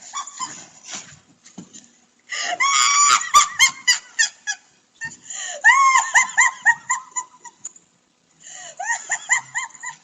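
A woman laughing in high-pitched shrieks: three bouts of quick rising-and-falling cries, the first about two seconds in.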